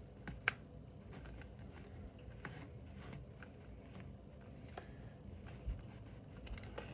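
Faint, scattered clicks and creaks of a screwdriver turning a screw tight into a plastic prop base.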